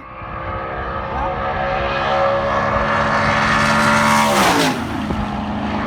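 Modified Ford F-150 V8 pickups at full throttle in a drag race, including a supercharged 1999 F-150 Lightning: a steady engine note that grows louder as they approach, then drops in pitch as they pass about four and a half seconds in.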